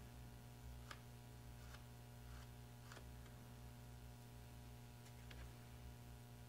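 Near silence over a steady low hum, with a few faint, soft taps as a foam sponge dabs paint onto a small model deck part.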